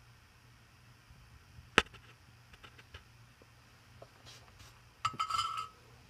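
Soldering tools and a metal coax connector being handled on a workbench: one sharp click about two seconds in, a few light ticks, then a short metallic rattle with a ringing tone near the end.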